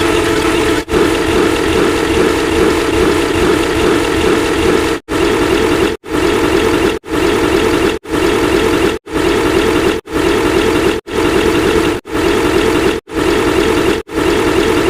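Loud, harsh edited sound effect with a dense mechanical, engine-like drone. From about five seconds in it breaks into one-second pieces, each cut off by a brief silence, like a clip restarting at each step of a count.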